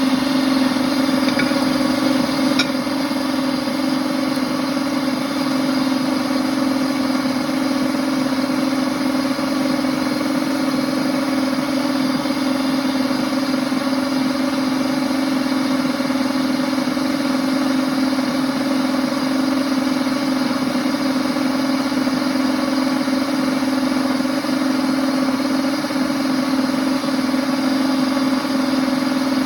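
Princess House Vida Sana blender running steadily with an even motor hum, blending milk and Abuelita chocolate for hot chocolate.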